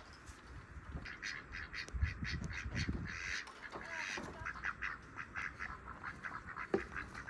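Ducks quacking over and over in short, rapid calls, starting about a second in, with a low rumble from handling or wind partway through.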